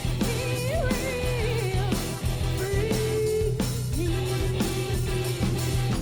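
Band music with singing: a voice holds long, wavering notes over guitar and drums.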